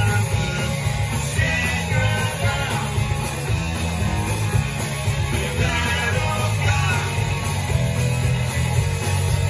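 Live punk rock band playing loud through a club PA: electric guitars, bass and drums, with a man singing in short phrases. It is heard from the audience.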